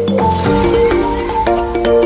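Background music: held melodic notes that change every half second or so over light, regular percussive clicks, with a brief cymbal-like swell near the start.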